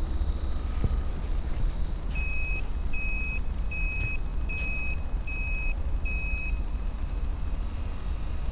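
An electronic beeper sounds six short, evenly spaced beeps, a little over one a second, over a steady low rumble.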